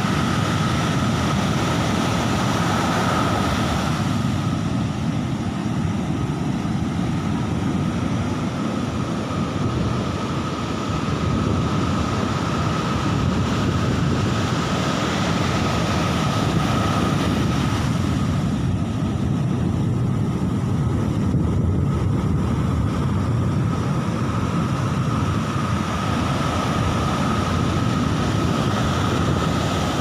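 Ocean surf breaking and washing up a sandy beach in a steady, continuous wash, with wind rumbling on the microphone. A faint steady high tone runs underneath.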